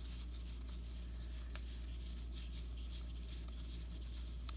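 Baseball cards sliding and rubbing against one another as a stack is flipped through by hand, with a few faint ticks of card edges, over a steady low hum.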